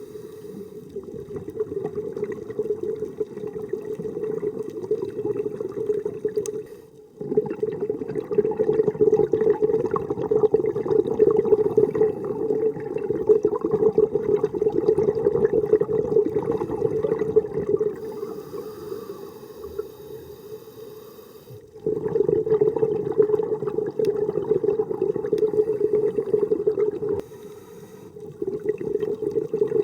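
Muffled rushing water noise, as heard underwater through a camera housing, dull and low with little treble. It drops out and restarts abruptly a few times.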